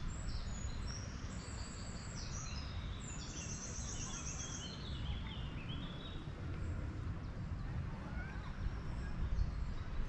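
Songbirds singing, a run of high trills and stepped, falling notes, mostly in the first half. Underneath is a steady low rumble.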